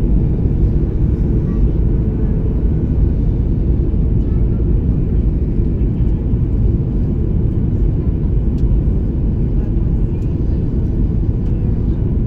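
Steady low rumble of cabin noise inside a Boeing 737-8 MAX: engine and airflow noise heard from a window seat over the wing, on approach with the flaps extended.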